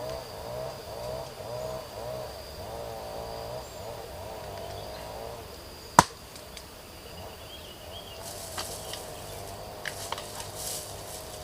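A steady high insect drone, with a warbling call repeating about twice a second through the first five seconds. A single sharp knock comes about six seconds in, and a few lighter clicks follow near the end.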